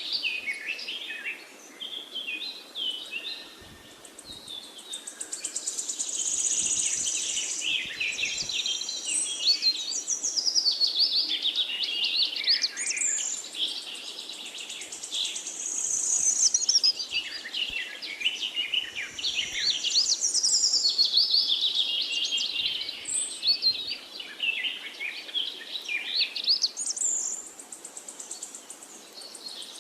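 Many small birds chirping and twittering at once, a busy chorus of quick, overlapping calls with rising and falling sweeps in pitch, over a faint steady background hiss.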